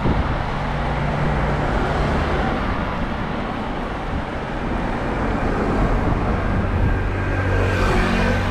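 Traffic noise heard from a bicycle's handlebar camera, a steady rush with cars passing close by. Near the end a motor scooter comes alongside, adding a steady low engine hum.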